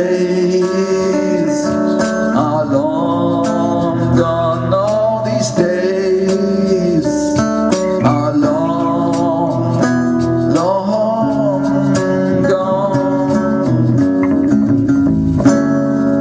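Live acoustic band playing an instrumental passage: strummed acoustic guitars under a bending melodic lead line, with short percussion and cymbal hits. It settles onto a held chord near the end.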